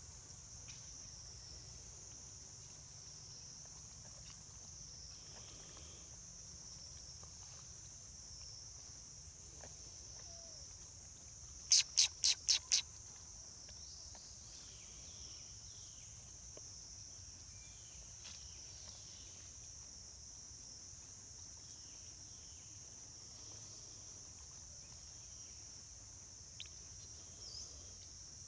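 Steady high-pitched drone of insects. About twelve seconds in come five loud, sharp calls in quick succession, and faint scattered bird chirps run underneath.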